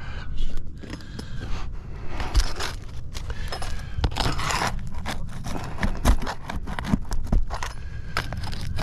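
Irregular scraping, crackling and clicking of brittle asphalt roof shingles being pried and worked by hand with tools during a shingle repair.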